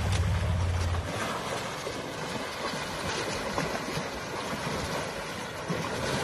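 Muddy river water rushing and splashing around wading elephants. A low steady hum runs underneath and cuts off about a second in.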